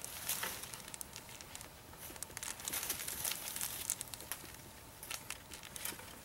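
Small plastic baggie crinkling and rustling in the hands as it is opened to take out char cloth, with many small crackly clicks.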